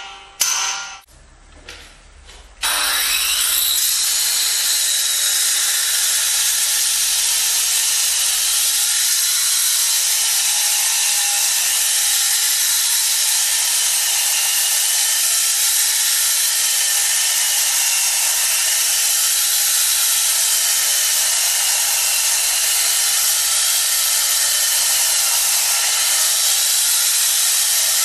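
A couple of sharp knocks, then a power tool working the marble starts about two and a half seconds in. Its whine rises as it spins up, then it runs steadily with a loud hiss and a whine that wavers up and down.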